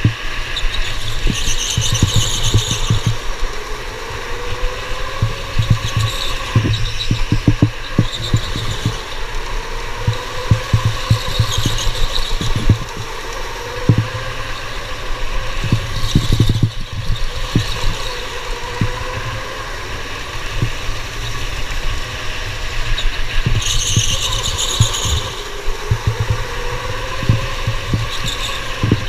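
Electric go-kart driven fast on an indoor track: the motor's whine rises and falls with speed, repeating through the laps, with brief bursts of tyre squeal in the corners. Wind rumble and rattling vibration on the onboard camera run underneath.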